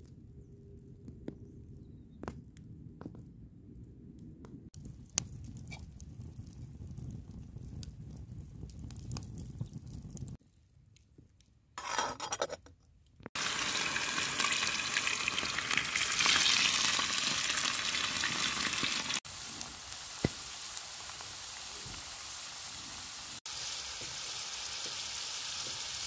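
Potato sticks frying in a pan of hot oil over a campfire: a steady loud sizzle from about halfway through, with a couple of brief cuts. Before it, a quieter low rumble with scattered small crackles.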